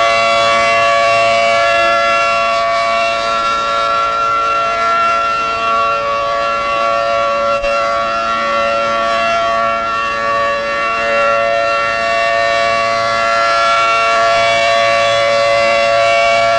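Federal Signal 500AT rotating outdoor warning siren sounding a steady tone for a tornado warning drill, its pitch holding level. The loudness sinks a little in the middle and swells again near the end as the horn turns away and back. Heard on an old cassette recording.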